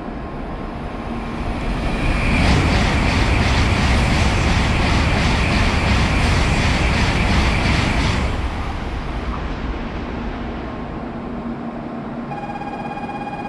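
Shinkansen train passing at speed on the through track beside the platform: a rush of noise builds about two seconds in, holds for about six seconds with a quick, even clatter of about three beats a second, then fades. A low hum sits under it, and a steady electronic tone starts near the end.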